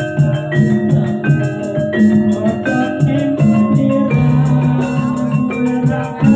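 Live gamelan music accompanying a jaranan horse dance: struck bronze metallophones ring out a repeating stepped melody over drum beats.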